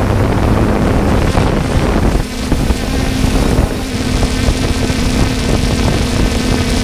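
Drone's electric motors and propellers humming on one steady pitch, recorded by the drone's own camera, with wind buffeting the microphone.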